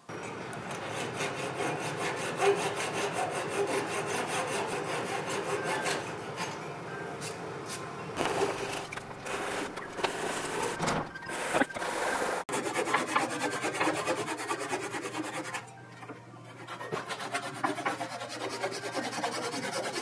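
Flush-cut handsaw trimming protruding oak pegs level with the oak boards of a door, in quick back-and-forth strokes through the end grain. The sawing comes in several runs, with breaks about 8 and 12 seconds in.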